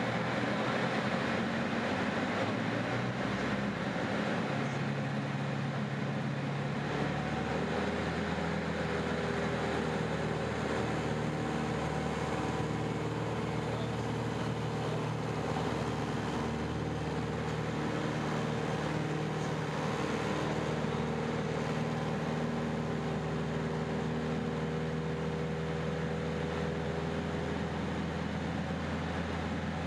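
Four-cylinder Lycoming engine of a CAP 10 aerobatic plane running in flight. The note shifts up a few seconds in, then holds steady over a constant rushing noise.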